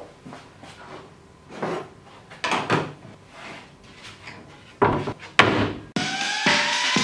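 Plywood pieces being slid and knocked about on a wooden workbench: scattered scrapes and wooden knocks, the two loudest about five seconds in. Music with a beat and rising tones comes in near the end.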